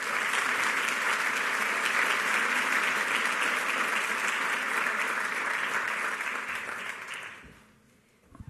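Audience applauding steadily, the clapping fading out near the end.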